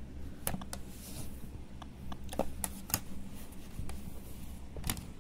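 Plastic bottom cover of an HP Mini laptop being pressed onto the base, giving a handful of sharp plastic clicks and creaks as its tabs are worked into their slots.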